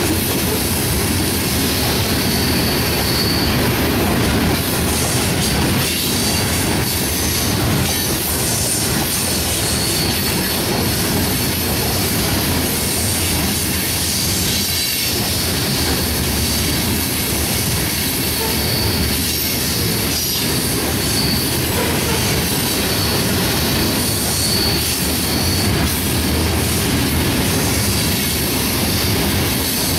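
Coal hopper cars of a freight train rolling past at speed: a steady, loud rumble and clatter of steel wheels on rail, with brief high wheel squeals now and then.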